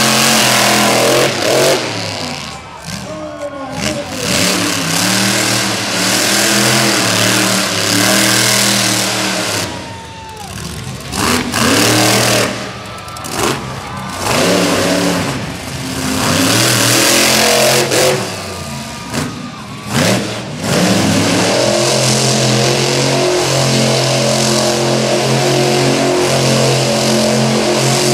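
Monster truck engines revving hard, the pitch climbing and falling with the throttle, with several abrupt breaks between clips. Over the last several seconds an engine holds a steadier note.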